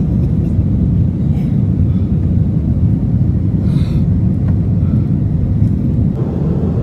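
Airliner cabin noise heard from a seat inside the plane: a loud, steady low rumble of the engines and rushing air.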